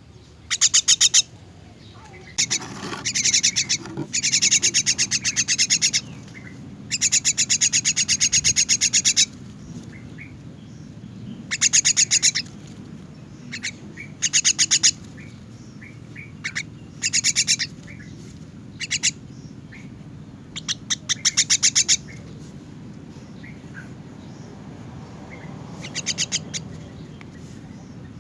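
Young myna giving harsh, rapid rattling begging calls in about a dozen bursts, each half a second to two seconds long, separated by short pauses.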